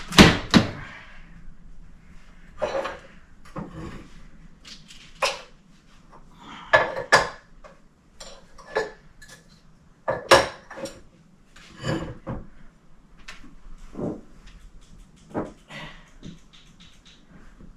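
Household items being handled and put away: an irregular run of knocks, clicks and clinks, a dozen or so separate hits, some ringing briefly.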